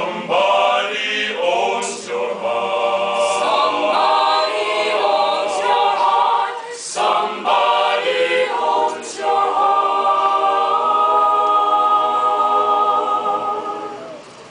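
Mixed choir singing a cappella in harmony, ending on a long held chord that fades away near the end.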